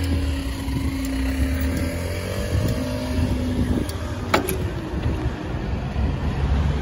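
Vehicle engines running with a steady low rumble and a held droning tone that stops about four seconds in, followed just after by a single sharp knock.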